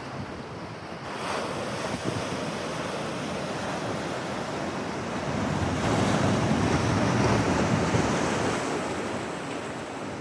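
Atlantic Ocean surf, waves rushing and breaking in a steady wash, with a louder swell building a little past halfway and easing off near the end. Wind buffets the microphone.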